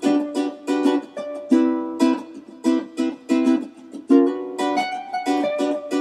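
Music played on a plucked string instrument: chords strummed and picked in a lively, steady rhythm.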